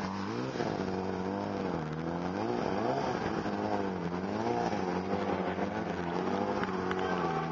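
BMW S1000RR inline-four sport-bike engine held on the throttle through a wheelie. The revs rise and fall repeatedly, about once a second.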